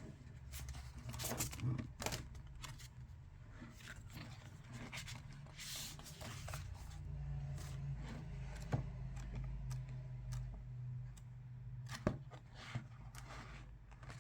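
Album packaging being handled: cardboard and paper rubbing, rustling and tapping, with scattered sharp clicks, over a low steady hum.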